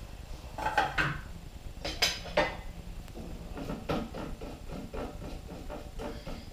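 Spatula scraping and knocking against the stainless-steel mixing bowl of a Thermomix TM5: a few sharp clanks, then a run of quicker, lighter taps as the chopped mixture is scraped down from the sides of the bowl.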